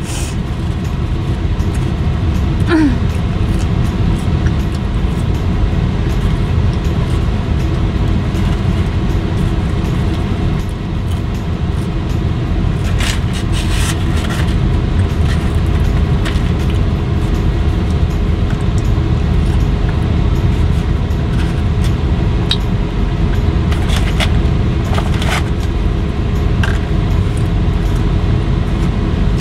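Steady low rumble with a faint hum inside a car's cabin, with a few short crunchy clicks from eating fried chicken fingers.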